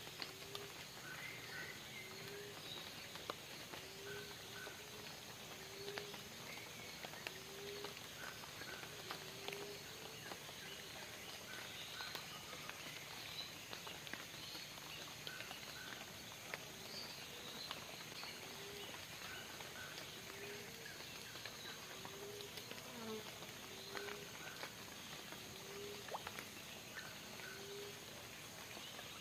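Faint wild swamp-forest chorus: a short, low call that slides upward repeats evenly about once every second or so, over paired higher notes, scattered chirps and a steady high insect hiss, with scattered faint ticks.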